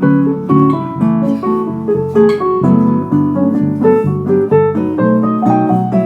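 Instrumental music with piano and guitar notes, played through an Audiocenter Butterfly 4 Pro mini line-array speaker and picked up live in the hall on a phone's microphone.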